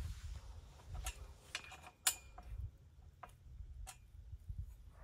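A series of short, sharp metal clicks, a little under two a second and the loudest about two seconds in, as a set screw on a weather-mast pipe bracket is turned tight by hand. Under them, a low, uneven rumble of wind on the microphone.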